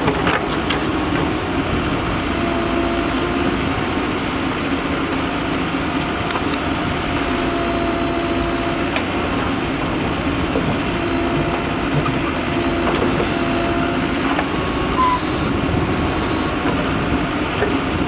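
Mahindra Earthmaster SX90 backhoe loader's diesel engine running steadily under load while the backhoe digs and swings. A steady tone comes and goes every few seconds as the arm works, with a few scattered knocks.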